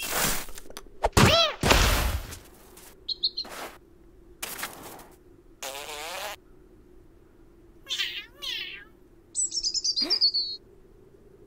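Cartoon foley for a cat falling into snow and a small bird: a voiced cat's short cry about a second in and soft thuds in the snow, then high bird chirps and chatter with a descending trilled tweet near the end.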